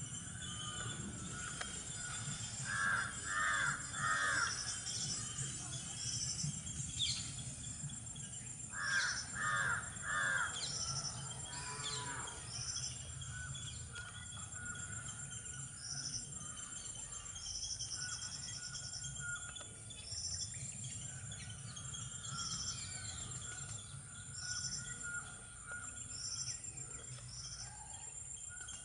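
Outdoor bird chorus: a crow caws in two bursts of three, about 3 and 9 seconds in, over short, high bird notes repeated every second or so and a steady high insect hum.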